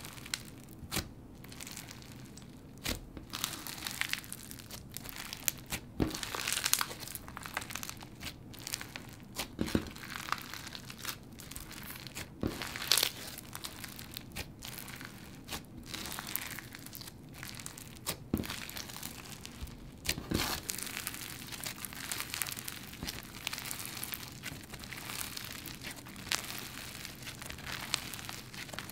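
Clear bingsu slime packed with bingsu beads being pressed, squished and stretched by hand: a dense, irregular crunchy crackle, with sharper pops now and then.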